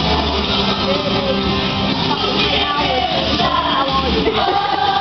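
Rock music with strummed guitar and singing, loud and steady; near the end a long sung note begins and is held.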